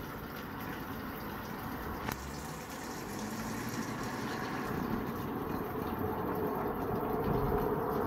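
Steady running water mixed with light traffic, a car driving past and growing a little louder in the second half.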